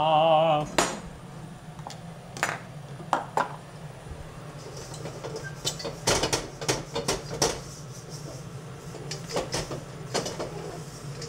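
Scattered kitchen-prep clicks and knocks: a kitchen knife and a plastic cutting board, and raw meat slices handled from a plastic tray. The clicks come thickest about six to seven seconds in and again near ten seconds, over a steady low hum of the range hood fan.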